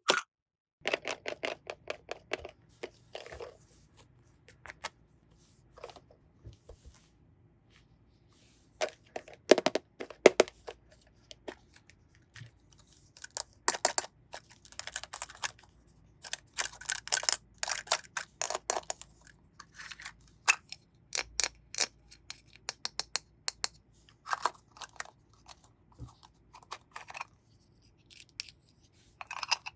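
Plastic toy pieces and packaging being handled: scattered clicks, taps and crinkly rustles, some coming in quick clusters.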